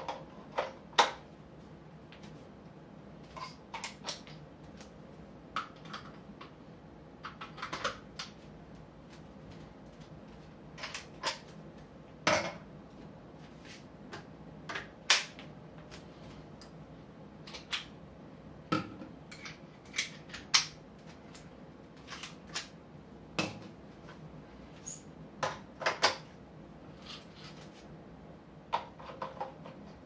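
Irregular metal clicks and knocks of camera-support gear being handled: quick-release clamps and tripod heads clicking as they are mounted and removed, and metal parts set down on a tile floor.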